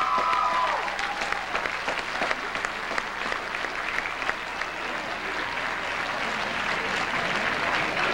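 Crowd applauding steadily with many hands clapping. The marching band's last held chord cuts off just under a second in.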